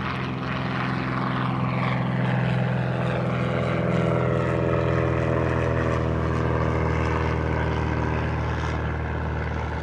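Van's RV-12's Rotax 912 ULS four-cylinder engine and propeller running steadily as the plane rolls away along the runway, a little fainter near the end.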